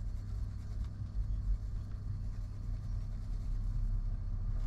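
A low, steady rumble with nothing sharper above it.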